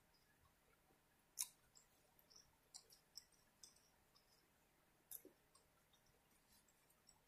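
Faint, scattered wet mouth clicks and smacks from a person chewing a mouthful of burger, the loudest about a second and a half in, with a few more at irregular intervals.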